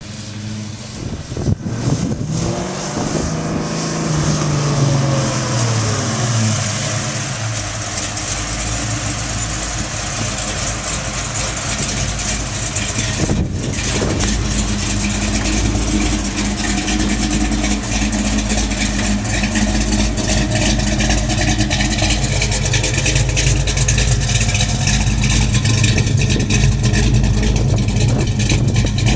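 Chevelle SS V8 engine. In the first few seconds its note falls as the car slows and pulls up; from about eight seconds in it idles steadily through its dual exhausts.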